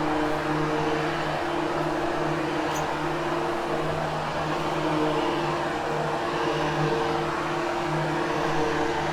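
Hoover Hushtone upright vacuum cleaner running steadily on carpet, a constant motor hum over a broad rushing noise, its hum swelling and fading slightly.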